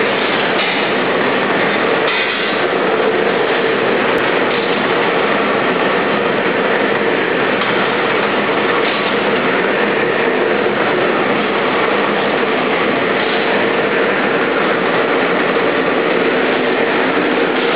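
Noodle making machine running: the roller press and noodle cutter turning steadily as cut noodles feed onto the conveyor, a loud even machine noise with a constant hum.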